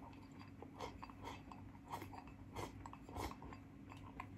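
Faint eating sounds from a person shovelling cauliflower rice from a porcelain bowl into the mouth and chewing it: irregular small wet smacks and clicks, a little louder about two and a half to three seconds in.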